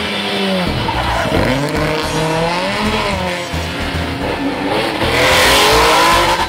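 Historic rally cars, a Ford Escort and a Porsche 911, driven hard: engines revving up and falling back several times through gear changes. Near the end comes a louder rush of engine and tyre noise as a car passes close, cut off suddenly.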